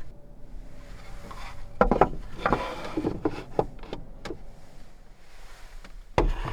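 A run of wooden knocks and clatters, with some rubbing, as items are handled and set down inside a small van, ending in one sharp knock near the end.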